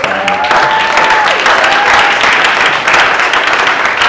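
Audience applauding loudly, a dense, steady clatter of many hands clapping.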